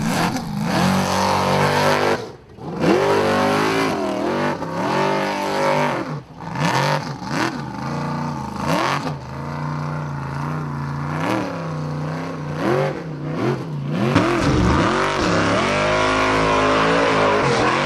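Formula Offroad buggy's engine revving hard under load as it climbs a steep dirt slope, its pitch rising and falling over and over as the throttle is worked. It briefly drops off twice early on.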